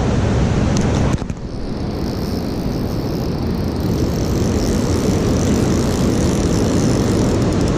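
Steady outdoor rushing noise of flowing river current mixed with wind on the microphone, dipping suddenly about a second in and then building back to a steady level.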